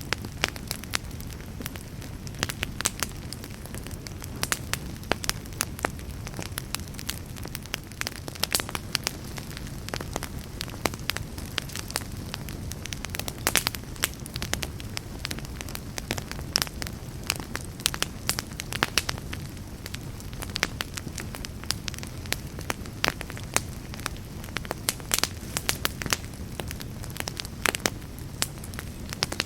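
Fire burning in a fireplace, crackling with many sharp pops and snaps over a steady low rumble of the flames.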